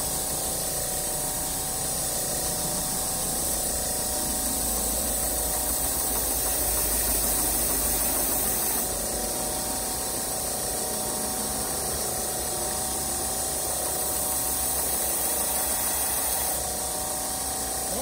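Single-speed belt grinder running steadily, its motor humming and the abrasive belt hissing over a waterfall platen. The hiss swells a little twice, around six and fourteen seconds in.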